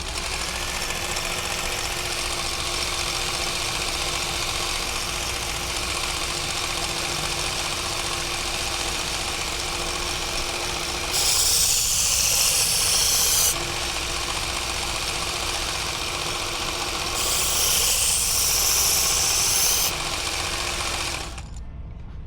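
Powered knife sharpener's motor running steadily, with two passes of a blade ground against it, each a bright hiss lasting two to three seconds. The motor cuts off near the end.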